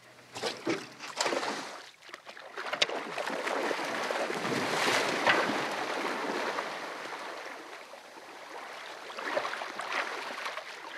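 A person running and wading through shallow sea water, the splashing rising to a peak and then fading, with a few sharp knocks in the first two seconds.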